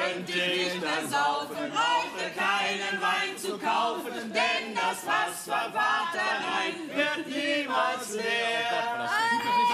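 A group of men and women singing a German drinking song together, with mixed voices overlapping loosely rather than as a trained choir.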